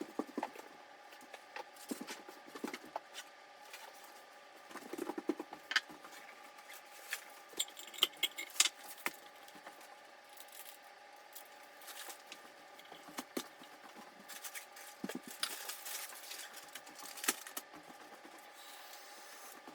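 Scattered light clicks, knocks and rustles of kitchen storage containers and packaging being handled, over a faint steady hum.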